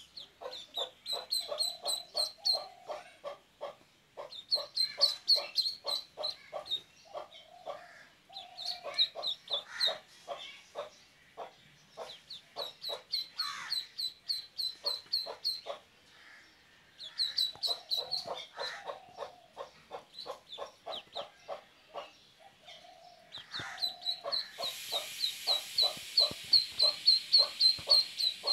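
A duckling peeping in fast runs of short, high chirps that stop and start every few seconds, with lower, rapid pulsed calls underneath. A steady hiss comes in near the end.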